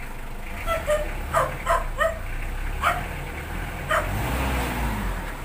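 Mitsubishi 4D56 2.5-litre diesel running steadily just after being started. Over it, a dog barks about seven short times in the first four seconds.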